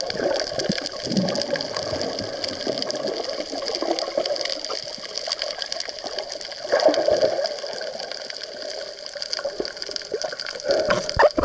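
Underwater water noise from the rough wave surge over the reef, sloshing and swelling every few seconds, with a faint steady high tone underneath.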